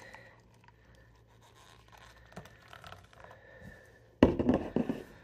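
Beer poured from an aluminium can into a clear plastic cup, quiet and faint. About four seconds in comes a sudden loud clatter of knocks and scraping as the cup and can are handled and set down on a wooden table.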